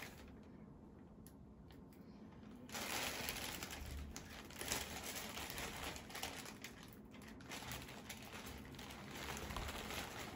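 Plastic poly mailer bag crinkling and rustling as it is torn and pulled open by hand, with faint clicks at first and fuller crinkling from about three seconds in.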